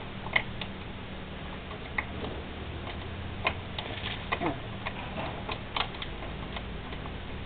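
Irregular metallic clicks and light taps from a small hand tool working on the Piaggio Ciao moped's engine mounting, a second or more apart, over a steady low hum.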